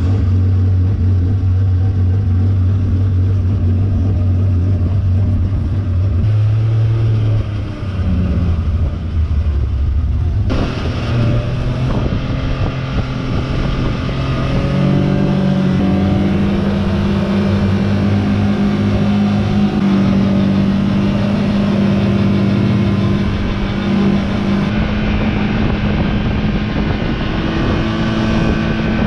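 Arctic Cat Wildcat XX side-by-side's 1,000 cc Yamaha three-cylinder engine running under way, its engine speed stepping up about halfway through.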